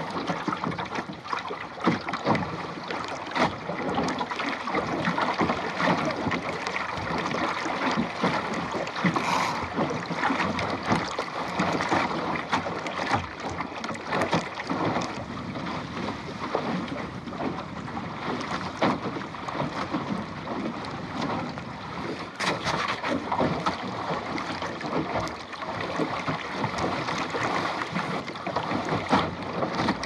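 Water splashing and slapping against the plywood hull of a Goat Island sailing skiff under way, with wind noise on the microphone. The slaps come irregularly throughout.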